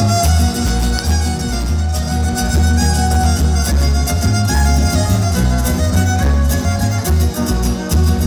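Live son huasteco (huapango) trio playing: a fiddle melody over strummed jarana and huapanguera guitars, amplified with a heavy, pulsing bass.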